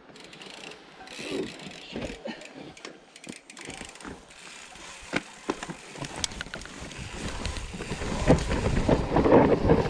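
Mountain bike riding down a dirt forest trail: tyre noise on the ground and rattles and clicks from the bike. The sound grows louder and rougher from about six seconds in as the descent gets faster.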